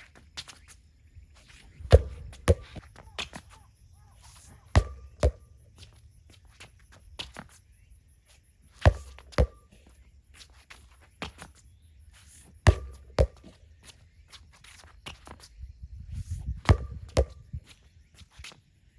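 Tennis rally: a ball bouncing on the court and being struck by a racket, a bounce-and-hit pair about half a second apart every four seconds or so, with fainter knocks between the pairs.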